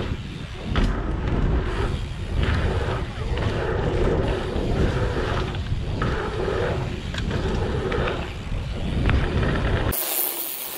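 Riding noise picked up by a handlebar camera on a dirt jump bike: wind rumbling over the microphone and tyres rolling on dirt, with several sharp knocks from the bike on drops and landings. About ten seconds in the low rumble cuts off and the sound turns thinner.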